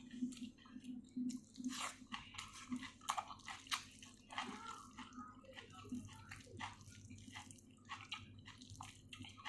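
Close-up chewing of a person eating a meal: many short, wet, clicky mouth sounds scattered irregularly, over a steady low hum.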